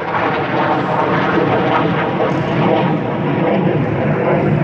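An airplane passing overhead: a steady, full engine noise with no breaks.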